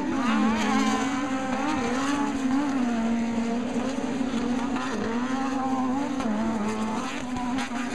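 Off-road race buggy engines running hard at race pace, the engine note rising and falling again and again as the drivers work the throttle.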